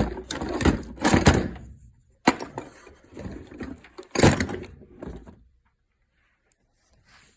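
A film editor viewer being handled and turned around on a surface: a run of knocks, scrapes and rattles, with a sharp knock about two seconds in.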